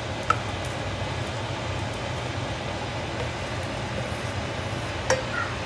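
A wooden spoon scrapes chopped chicken out of a metal bowl into a pot of boiling gumbo, with two sharp knocks of spoon on bowl, one just after the start and one near the end. Under it runs a steady rushing noise with a low hum.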